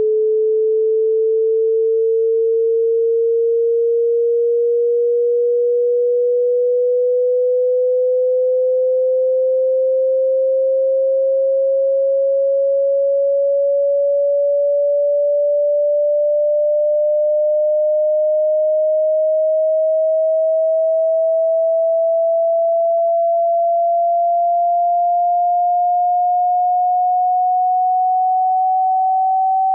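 A pure sine test tone gliding slowly and steadily upward in pitch, from about 430 to about 770 hertz: a frequency sweep for a hearing test.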